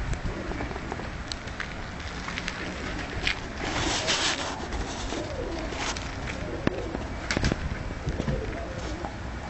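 Tumbler pigeons cooing, with scattered sharp ticks and a second-long rustle about four seconds in.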